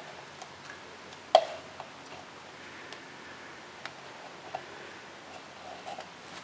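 Sparse light clicks and taps, one sharper click about a second and a half in, from handling a small epoxy mixing cup and putty knife over a quiet background.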